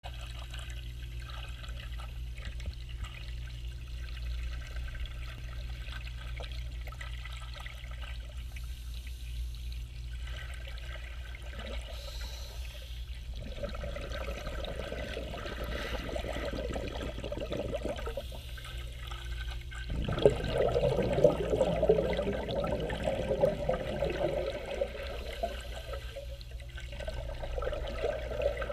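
Scuba regulator exhaust bubbles heard underwater: bursts of bubbling and gurgling as the diver breathes out, loudest about two-thirds of the way through, over a steady low hum.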